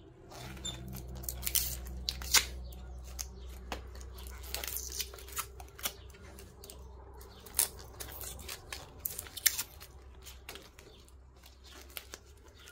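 Insulation paper being scraped and torn off a transformer's copper coil with a scraper and pliers: a run of irregular sharp scrapes, tears and clicks. A low steady hum runs underneath and stops near the end.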